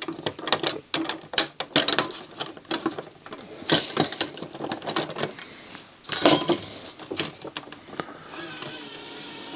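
A screwdriver clicking and scraping against the metal disc-clamper bracket and plastic parts of a CD drive as the bracket is prised off. There are many small clicks, louder clatters about four and six seconds in, and quieter handling rustle near the end.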